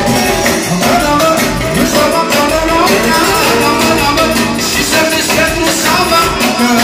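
Live manele music played loud: a man singing into a microphone over electronic keyboards and a steady beat.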